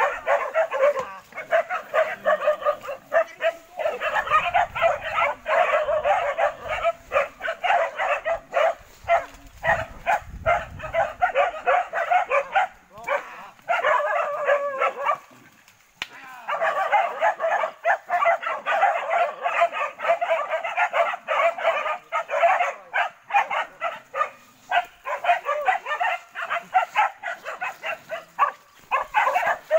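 Hunting dogs barking rapidly and continuously, baying at a wild boar, with a brief break about halfway through.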